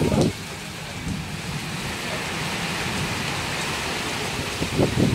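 Heavy rain pouring steadily, an even dense hiss, with short low rumbles right at the start and again near the end.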